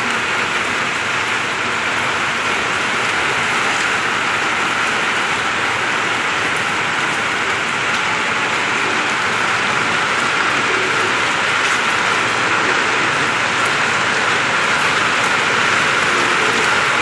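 Steady rain falling on a wet concrete rooftop and its puddles, an even hiss that grows slightly louder toward the end.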